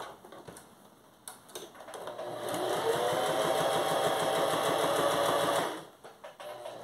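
Electric sewing machine starting up about two seconds in, its motor whine rising and then holding steady as it stitches around fabric bunny ears; it stops about a second before the end. A few light handling clicks come before it starts.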